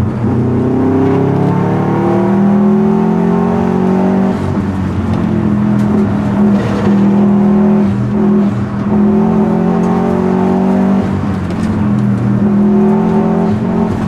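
2004 Subaru WRX STi's turbocharged flat-four, heard from inside the cabin while driven hard. The engine note climbs in pitch, drops away briefly and climbs again several times, as the car accelerates, changes gear and lifts for corners.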